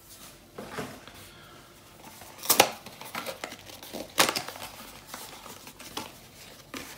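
Plastic packaging crinkling and rustling as it is handled. There are a few sharp crackles, the loudest about two and a half seconds in and another about four seconds in.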